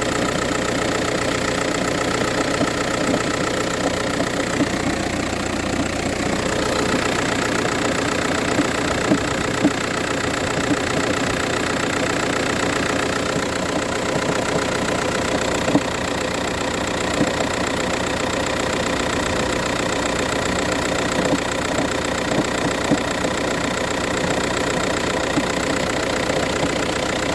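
VW Touran 1.9 TDI four-cylinder diesel engine idling steadily after a cold start, with a knocking noise and now and then a sharper knock standing out. The owner hears this knock only on cold mornings, with no trouble when driving or changing gear.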